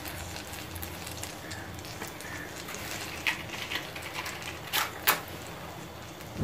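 Melted butter sizzling gently in a pan over a very low flame: a steady fine crackle, with three sharper pops in the second half.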